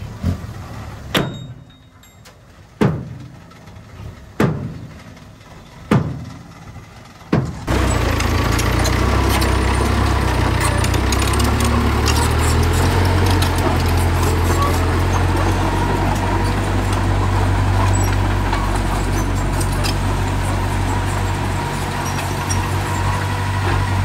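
Sharp, separate knocks about every second and a half, then, after a sudden change a third of the way in, a heavy earthmoving machine's diesel engine running steadily with a deep, even low hum.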